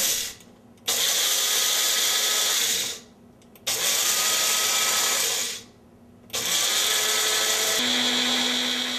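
Small bullet-style personal blender grinding dry whole black mustard seed with salt, pulsed on and off: a short run that stops just after the start, then three runs of about two seconds each with brief pauses between them.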